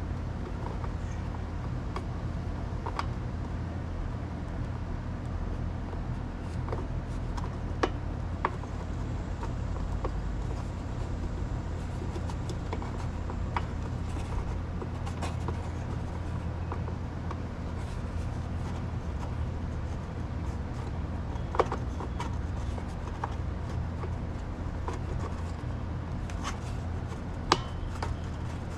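Small clicks, taps and rubbing as insulated spade wire connectors are worked onto the terminals of a water heater's electric switch, with a few sharper clicks, about 8, 22 and 27 seconds in, as they seat. A steady low hum runs underneath.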